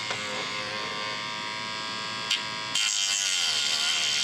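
Handheld rotary tool with a cut-off disc running at steady high speed, a constant whine. Nearly three seconds in the disc bites into the plastic locomotive shell and the sound gets louder, with a hiss of cutting over the whine.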